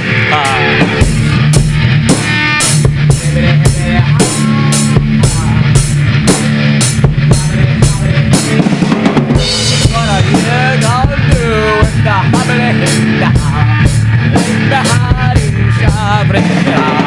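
Death metal music with a steady drum-kit beat of bass drum and snare over a sustained low bass line.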